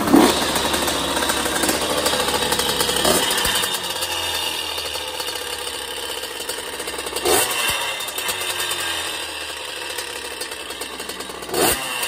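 2001 Honda CR80's 80cc two-stroke engine kicked over and catching at once, then running with three throttle blips that fall back to idle. It carries a little rattling, knocking noise from the engine and exhaust pipe being loose in the frame.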